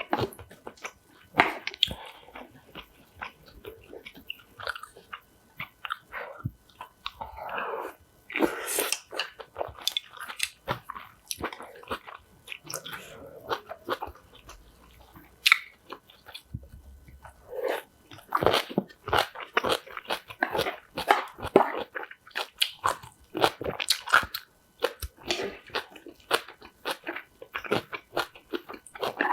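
Close-up crunching and chewing of spicy ponytail-radish (chonggak) kimchi: crisp bites and crunches at an irregular pace, busiest in the second half.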